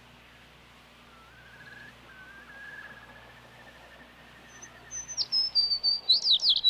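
Sparrow calls: a faint warbling trill in the first half, then from about four and a half seconds a few high descending chirps followed by a quick burst of loud, sharp chirps near the end.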